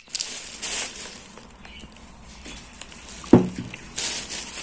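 Thin plastic shopping bag rustling and crinkling as a hand handles it and reaches in among wrapped sweets, loudest near the end. A single sharp thump comes a little past three seconds in and is the loudest sound.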